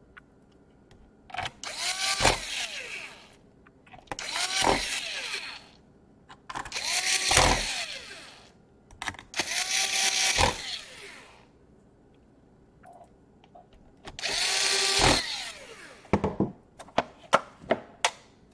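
Small electric screwdriver driving laptop screws in five short runs of a second or two each, the motor's pitch falling as each run ends. Several light clicks follow near the end.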